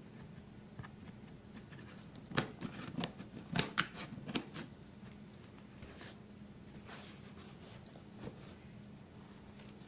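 Scissors cutting and scraping at packing tape on a cardboard shipping box: a quick cluster of sharp snips and clicks between about two and five seconds in, then a few scattered taps as the box is handled.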